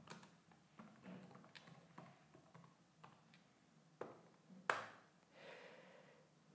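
Faint, scattered keystrokes on a computer keyboard as a terminal command is typed. One sharper, louder key click comes about two-thirds of the way through.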